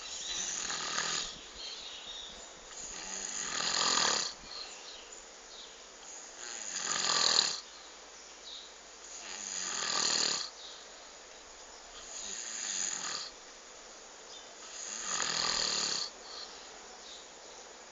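A sleeper snoring in slow, regular breaths. Each breathy snore swells louder and then cuts off abruptly, about every three seconds.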